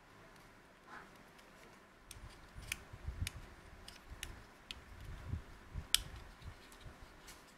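Plastic clicking of a SanDisk Ultra USB 3.0 flash drive's sliding connector being pushed in and out by hand, with soft handling bumps. The clicks come in a string from about two seconds in, the loudest near six seconds, and stop just before the end.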